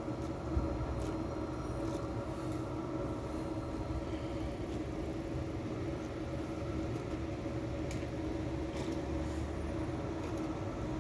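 DB Class 423 S-Bahn electric multiple unit standing at the platform, its onboard electrical equipment giving a steady hum of several held tones, with a few faint clicks.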